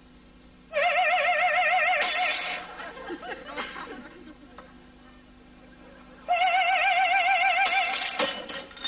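A woman's operatic voice holds a high note with wide vibrato for about a second, then a glass shatters into scattered tinkling pieces. Near the end she sings a second held note, followed by another crash.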